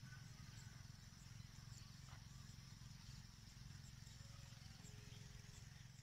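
Faint outdoor ambience: a low, steady wind rumble on the microphone, a few faint distant bird chirps and a thin steady high insect hum.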